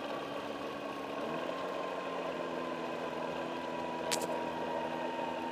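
Cessna 172S's Lycoming four-cylinder engine idling during the landing rollout, heard in the cabin, with a steady whine that slowly drops in pitch. There is one brief sharp click about four seconds in.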